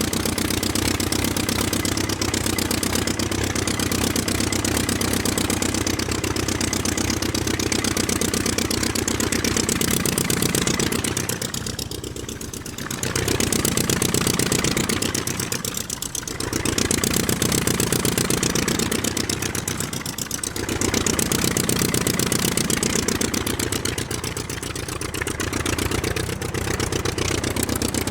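Aircraft engine running steadily, with a fast even pulse and a few brief dips in level and pitch.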